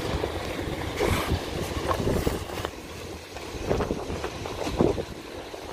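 Sandstorm wind gusting hard, a rushing noise with heavy low rumble on the microphone that swells and eases in several gusts.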